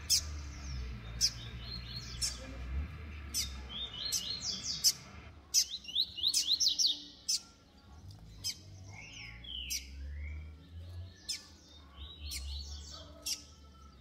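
Brown-plumaged double-collared seedeaters (coleiros) in two cages, trading bursts of short, sharp, high chirps in a singing contest.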